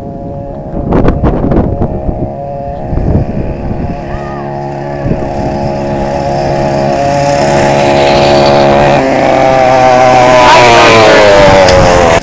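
Several small mini bike engines running at speed, getting steadily louder as the bikes approach and pass close by, with the engine pitch bending near the end.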